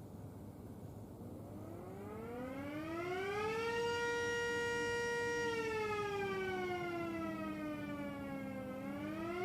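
Mini Sterling M electromechanical siren sounding a wail. It winds up over about two seconds to a steady pitch, holds briefly, slowly winds down over about three seconds, and starts climbing again near the end.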